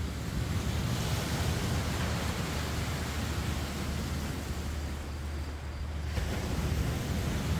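Steady roar of sea surf on a beach, with wind rumbling on the microphone.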